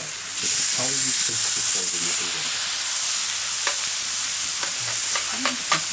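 Slice of Black Angus roast beef laid on a hot steel fire plate (plancha) and frying: a steady sizzle sets in about half a second in and carries on, with a few short clicks in the second half.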